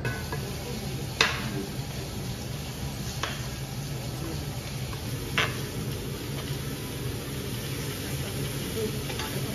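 Food sizzling steadily as it fries, with a few short clicks about one, three and five seconds in.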